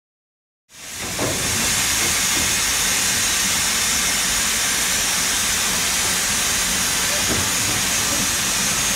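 Steam locomotive venting steam: a loud, steady hiss that starts abruptly about a second in.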